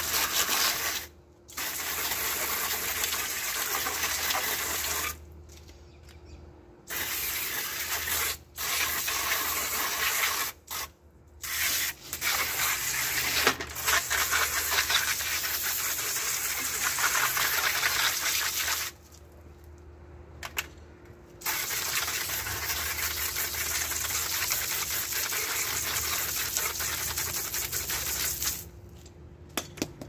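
Garden hose spray nozzle jetting water onto the plastic front grille of a window air conditioner and the concrete around it, rinsing off cleaner. The rush of spray is squeezed on and off in long spells with short pauses between.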